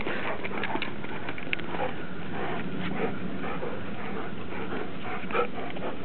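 A Standard Poodle and a Newfoundland at play: a steady scuffling noise with small ticks and a few faint dog sounds, slightly louder about five seconds in.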